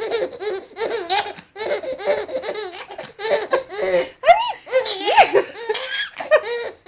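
A baby laughing hard in a run of short, repeated bursts, with a few higher squealing rises about four to five seconds in.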